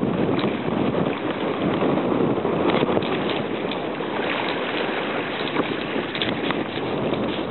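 Small waves washing and splashing over shoreline rocks, with short crackles of breaking foam, and wind blowing on the microphone.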